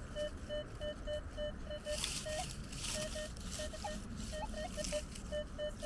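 Metal detector beeping on a target in short, even beeps of one pitch, about three a second, with a few higher, wavering tones in the second half. Soil and debris rustle and scrape several times, mostly in the middle.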